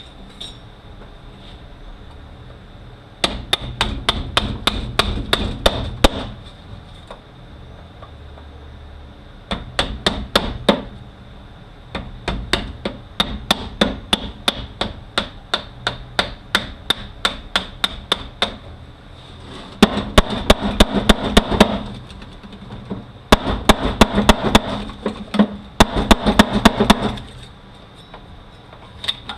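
Hand hammer striking metal to knock a part out of a 1356 transfer case: quick sharp blows, about five a second, in several runs separated by short pauses.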